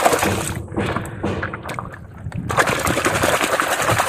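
Muddy water sloshing and splashing as a hand scrubs a toy truck vigorously in a shallow pool. It comes in two bouts with a short lull about halfway through.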